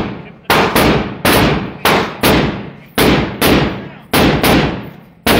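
Rifle fired in quick single shots, about ten in irregular succession, each shot ringing out in a long echo off the walls of an indoor range.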